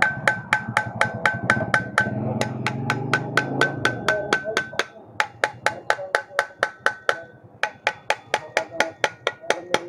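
Rapid, even metal tapping on a motorcycle CVT clutch assembly, about four taps a second, many ringing briefly, to work a part loose so it lifts free for removal.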